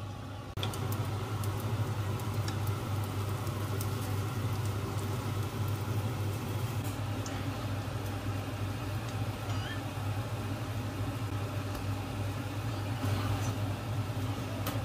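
Steady low mechanical hum that comes in about half a second in, with scattered light clicks over it.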